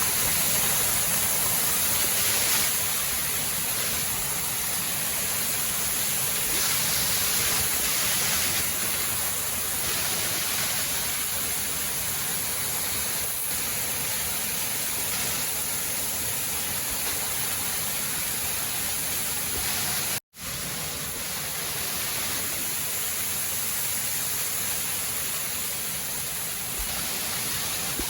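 Waterfall: a steady rush of falling water, cut off for a split second about twenty seconds in.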